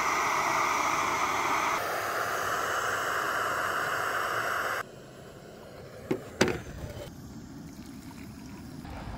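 Steady rushing hiss of a Campmaster Ultra Jet 1 butane hiking stove burner heating a pot of water as it comes to the boil, cutting off about five seconds in. Then two short knocks, and hot water trickling into mugs near the end.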